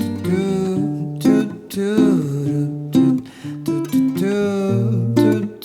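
Acoustic guitar strummed and picked, playing chords that change every second or so, with sharp strokes on some of them.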